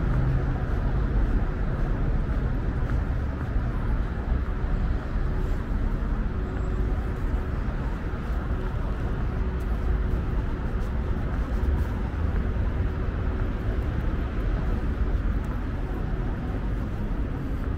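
Steady street traffic: a continuous rumble of cars passing on a busy city road.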